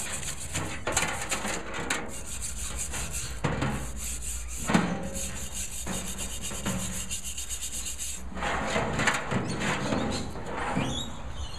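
Steel wire brush scrubbing a cast iron barbecue burner wet with molasses-and-water solution: repeated back-and-forth rasping strokes, scouring off rust that the molasses soak has loosened.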